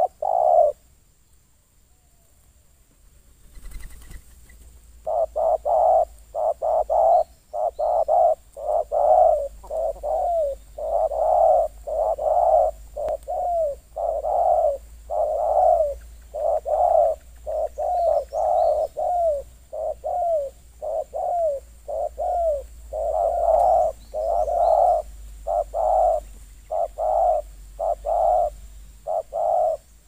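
Spotted doves cooing. A couple of coos at the start are followed, after a short pause, by a long run of rapid, repeated low coos that stops just before the end.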